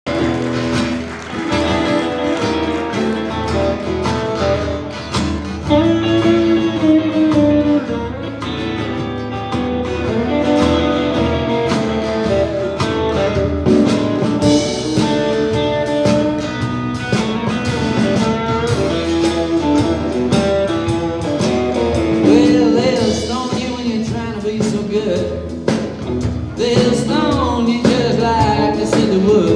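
Live band playing a blues-rock number: strummed acoustic guitar, electric guitar, bass guitar and a drum kit, with a male lead vocal.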